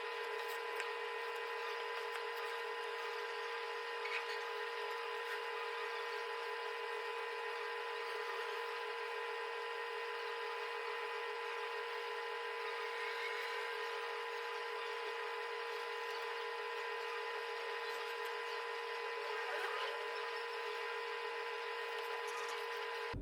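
A steady, unchanging machine hum or whine made of several fixed tones over a light hiss, with a few faint ticks; it cuts off suddenly at the end.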